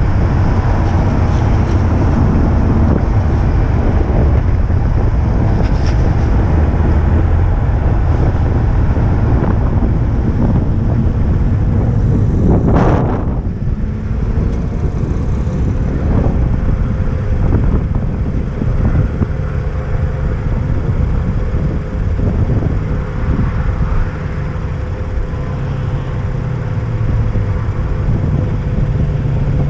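Car engine running at speed with tyre and wind noise while driving laps of a wet race circuit. About thirteen seconds in comes a short loud rushing burst. After it the sound drops a little, with a steady hum running through it.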